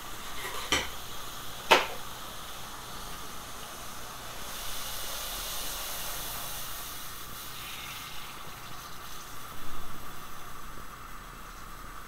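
Liquid nitrogen boiling off in a stainless steel bowl, giving a steady hiss that grows brighter for a few seconds midway. Two sharp knocks come in the first two seconds.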